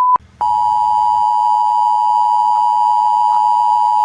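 Emergency alert tones. A single steady alert tone cuts off just after the start, and after a brief gap the two-tone emergency alert attention signal starts and holds steady.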